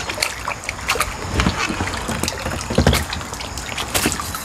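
Water splashing as a hooked crucian carp thrashes at the surface and a landing net is dipped into and lifted through the water, with irregular splashes and drips; the loudest splash comes about three seconds in.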